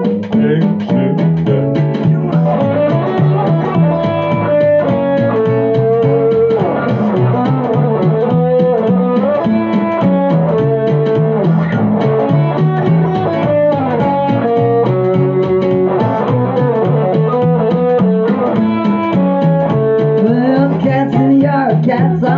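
Instrumental break of a bluesy song played live: an amplified acoustic-electric guitar plays lead lines with bending notes over electric keyboard chords and a steady beat.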